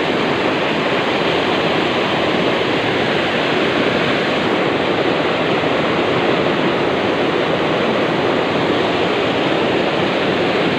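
Muddy river water rushing and splashing over a concrete ledge in a steady, noisy roar of white water.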